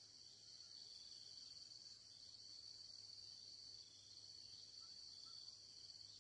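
Faint, steady high-pitched drone of an insect chorus, with two faint short chirps about five seconds in.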